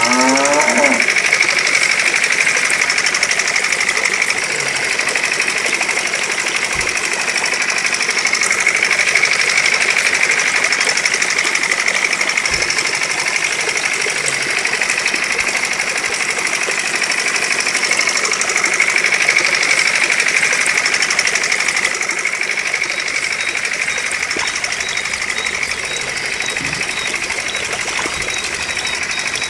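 Small electric motor of a miniature toy water pump running steadily at high speed, a continuous mechanical buzz. A cow-like moo trails off in the first second.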